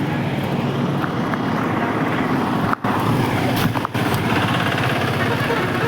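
Heavy rain with hail: a steady rushing noise peppered with many small ticks. The sound drops out twice for an instant, about three and four seconds in.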